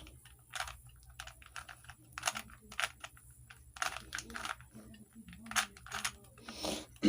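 A Rubik's cube being turned quickly by hand: its plastic layers click and clack in quick, irregular runs.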